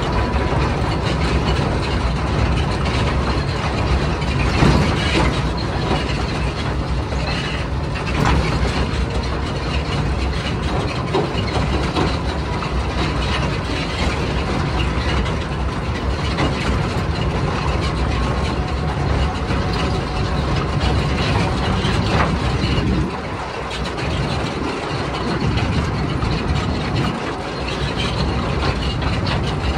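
Hokuriku Juki Kogyo diesel locomotive running steadily on a narrow-gauge cane railway, with the rolling rattle of the train over the track and occasional knocks. The low engine rumble drops away for a few seconds about three-quarters of the way through, then comes back.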